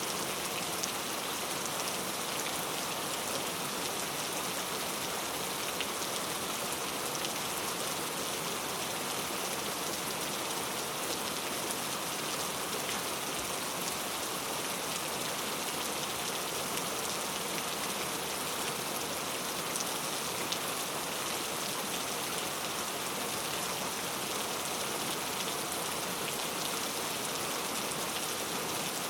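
Steady rain falling: an even hiss of many small drops, strongest in the high range, with no change in strength.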